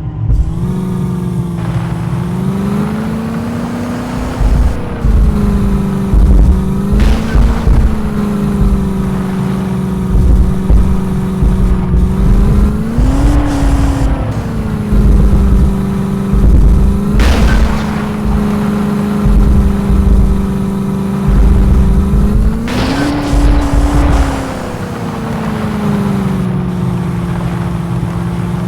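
Jeep engine running while driving off-road, its pitch rising and falling a few times with the throttle, over irregular low rumbling thuds.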